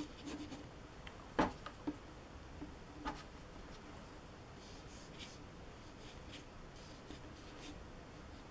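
Faint scratchy strokes of a paintbrush across paper, with two or three light knocks in the first few seconds.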